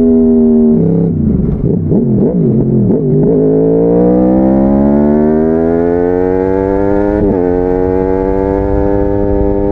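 2014 Yamaha YZF-R1's crossplane inline-four (CP4) running through a Bodis slip-on exhaust under riding. The engine note drops about a second in and wavers up and down for a couple of seconds, then climbs steadily under acceleration. A quick upshift about seven seconds in is followed by further pulling.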